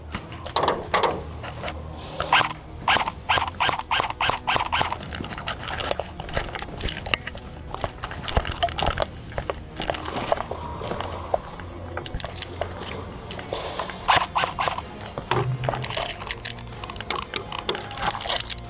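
Irregular clicks, knocks and scuffs of an airsoft player moving fast over a concrete floor with rifle and gear: footsteps and rattling equipment.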